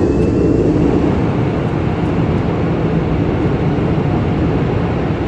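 Airbus A340's four CFM56 engines, heard from inside the cockpit, spooling up to takeoff thrust at the start of the takeoff roll: a steady, loud rushing roar with a faint whine that rises slowly.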